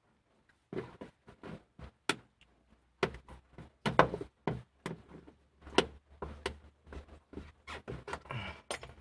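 Irregular clicks, knocks and rattles of hands unclipping and pulling loose a car's plastic air intake hose and air filter housing, with the engine off.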